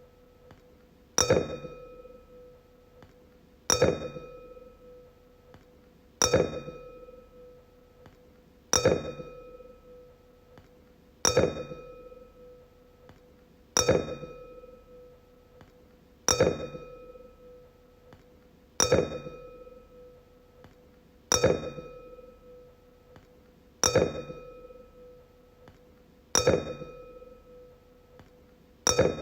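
Wine glass struck over and over, about every two and a half seconds; each tap gives a clear ring that fades away before the next.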